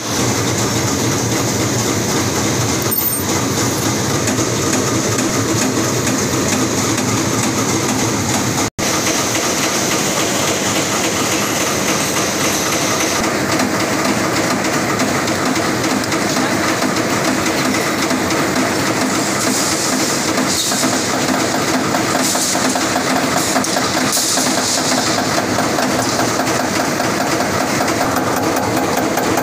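Yamada Dobby high-speed stamping press running continuously, a loud, steady, fast mechanical clatter.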